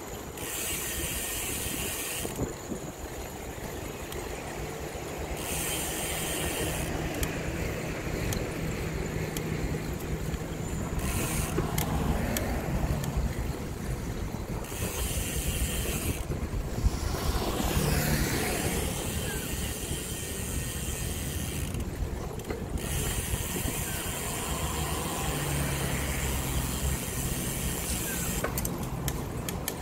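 Steady rumble of road traffic and wind heard from a moving bicycle, with car engines humming past now and then. A high buzz comes and goes in several stretches, switching on and off abruptly.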